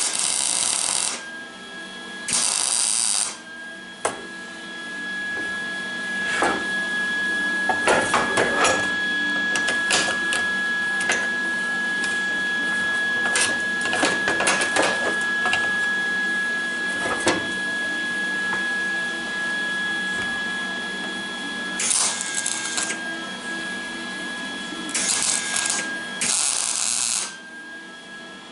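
Electric arc welding on steel wheel chocks. A couple of short welds about a second each, then one long weld of roughly eighteen seconds, crackling and spitting, then more short welds near the end. A steady high whine runs underneath throughout.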